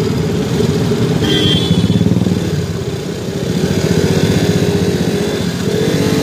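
KTM motorcycle engine running under way, picked up close by a phone mounted on the bike, with wind and road noise; the throttle eases off about three seconds in, then opens up again.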